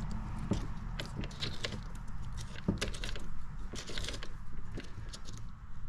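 Irregular clicking and scraping as a step drill bit, held in an unplugged corded drill, is turned by hand against plastic, shaving material away to enlarge a hole.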